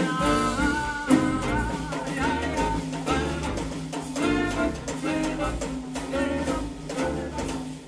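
A live jazz combo playing a samba: guitar, bass, piano and drum kit.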